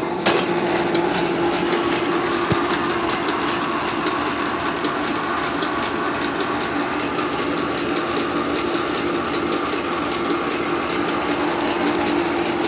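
Hendey eight-speed geared-head engine lathe running under power from its belt-driven 5-horsepower motor: a steady mechanical hum with one constant tone and a dense, fast rattle.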